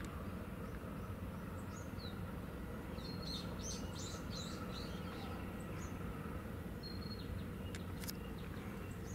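Small birds chirping faintly, with short high calls and down-slurred notes, busiest in the middle, over a steady low background rumble. A couple of sharp clicks near the end.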